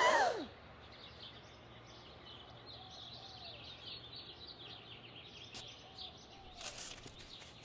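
Background ambience of small birds chirping, many short high chirps over a low steady bed of outdoor noise. A short falling-pitched sound at the very start is the loudest moment, and a brief burst of noise comes late on.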